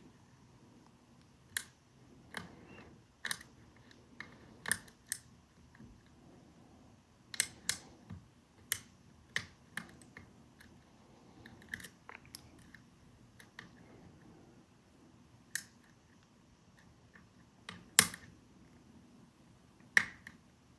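Small irregular metal clicks and light scraping of a lock pick working the wafers of a small wafer cabinet lock, with a sharper click about eighteen seconds in.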